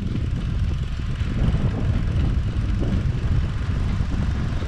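Steady low rumble of wind buffeting the microphone of a camera carried on a moving bicycle.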